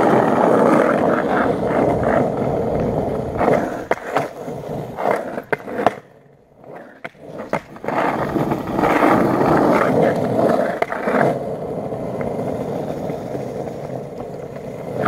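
Skateboard wheels rolling over pavement, a rough continuous rumble with sharp clicks as the wheels cross cracks and seams. It drops away briefly about six seconds in, then picks up again and settles into a steadier roll.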